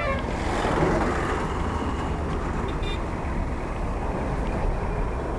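Steady low rumble of road traffic, swelling briefly about a second in.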